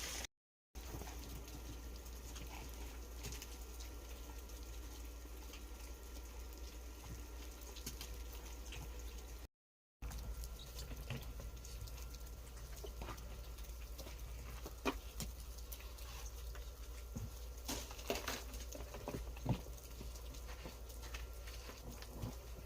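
Freezing rain: sleet pellets ticking and pattering lightly and irregularly, over a faint steady low hum.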